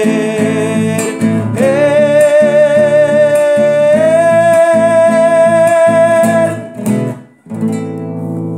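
A man sings a long held final note over a strummed acoustic guitar; the note steps up in pitch about four seconds in and stops about six and a half seconds in. After a brief pause the guitar strums on alone to close the song.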